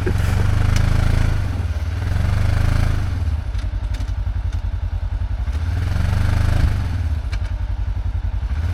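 Polaris side-by-side UTV engine running and revving up and easing off in several swells while the machine tries to back out of deep snow. It seems not to be getting enough throttle to pull free.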